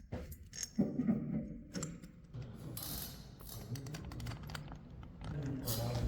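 Small metallic clicks and clatter of hand tools on screws and bolts, as the screws holding the handle base and front truck are lightly tightened.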